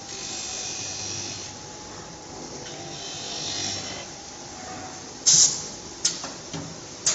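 CNC glass corner grinding machine running: a steady motor hum, with two stretches of hissy grinding as the wheel works a glass corner. About five seconds in comes a loud sharp knock, then a few lighter knocks.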